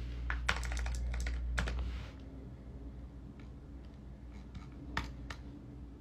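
Computer keyboard keys tapped in scattered, irregular clicks during beat making, with a low held bass tone from the beat playback that cuts off about two seconds in.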